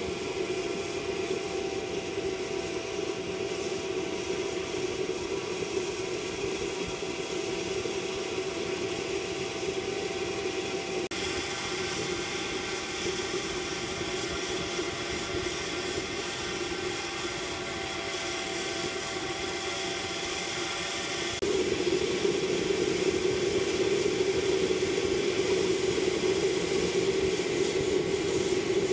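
Waste-oil burner of a fire-extinguisher stove burning with air forced in through a blower pipe: a steady roar with a few faint steady tones. The sound changes abruptly twice and is louder after the second change, about 21 seconds in.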